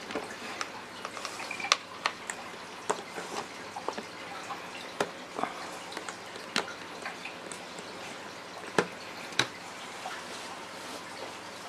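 Irregular small clicks and taps of insulated crimp connectors and wires being handled and pressed onto switch terminals in a plastic tackle box lid. The clicks stop shortly before the end.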